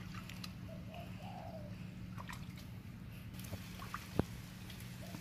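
Small splashes and drips of muddy ditch water as hands grope through it, with a sharp click about four seconds in. A bird calls faintly once.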